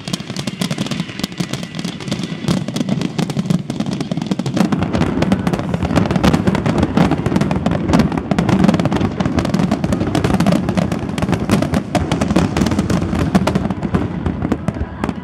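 Finale barrage of aerial firework shells bursting in quick succession, the bangs running together into one continuous volley. It thickens about four seconds in and eases off near the end.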